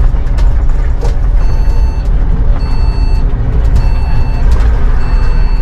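London bus running on the road, heard from the driver's cab as a steady low engine and road rumble with a few rattling clicks. From about a second and a half in, an electronic beep sounds about once every 1.2 seconds.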